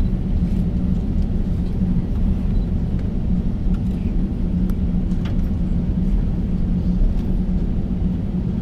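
Cabin noise of an Airbus A350-900 taxiing: a steady low rumble with a hum from its Rolls-Royce Trent XWB engines at taxi power and the wheels rolling over the taxiway.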